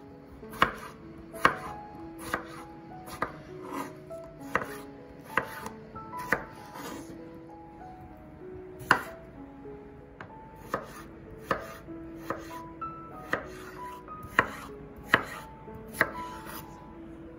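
Kitchen knife chopping peeled raw potatoes on a bamboo cutting board: a sharp knock of the blade on the board about once a second, with a pause of a couple of seconds midway. Soft background music plays underneath.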